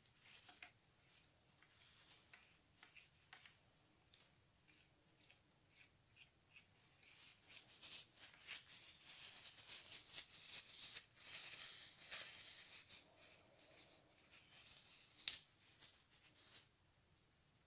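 Red plastic spoon stirring and scraping gold metallic slime on a clear plastic plate: faint, quick scrapes and little sticky clicks, busier and louder in the middle, with one sharper click near the end.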